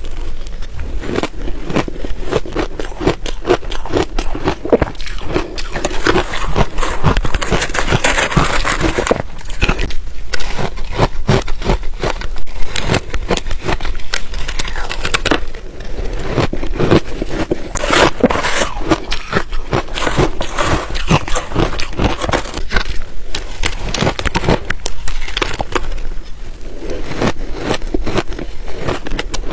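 Ice being bitten and chewed close to the microphone: a dense, unbroken run of loud crunches, crackles and snaps, thickest about a third of the way in and again past the middle.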